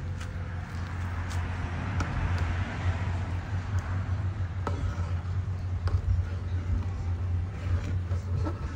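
Rice boiling in an aluminium pot, stirred with a metal ladle that clinks against the pot a handful of times, over a steady low rumble.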